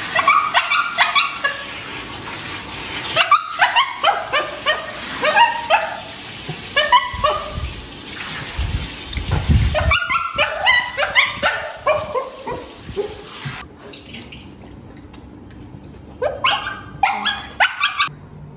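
Shih Tzu yelping and whining while being bathed, in several runs of short, high cries. Under them the steady hiss of a handheld shower spray, which stops about two thirds of the way through.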